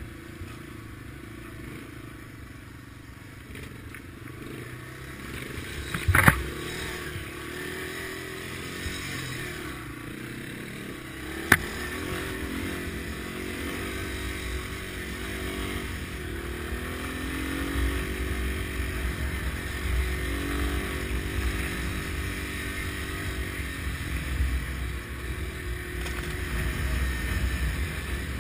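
Small dual-sport motorcycle engine running while being ridden over a rough dirt trail, its revs rising and falling and getting louder in the second half. Two sharp knocks, about six and about eleven and a half seconds in.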